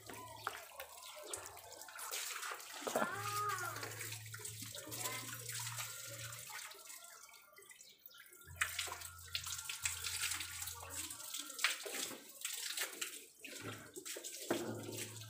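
Water from a garden hose splashing over a motorcycle and running off onto the floor, an uneven hiss that goes on throughout.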